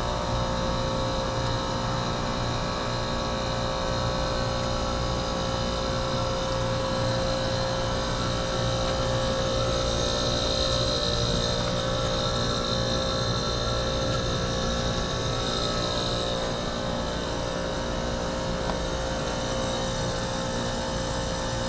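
2007 Heil 5-ton heat pump's outdoor unit running through a defrost cycle, its scroll compressor giving a steady hum with a constant mid-pitched tone. A high whine swells a little for a few seconds around the middle.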